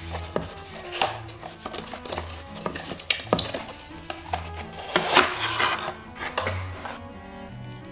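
Cardboard sleeve being slid off a folding wooden tablet stand: paper scraping and rustling, with several sharp knocks and taps of the wooden board being handled. Soft string music plays underneath.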